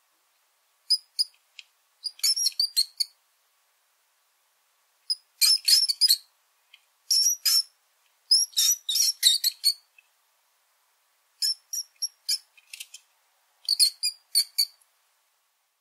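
Rats squeaking: groups of short, high-pitched squeaks every second or two, with dead silence between the groups.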